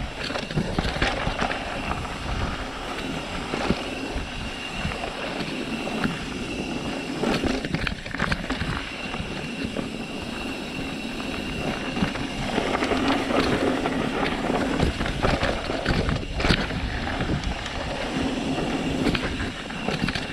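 Mountain bike rolling fast down a dirt and gravel singletrack: tyres running over the dirt, with the bike knocking and rattling over bumps.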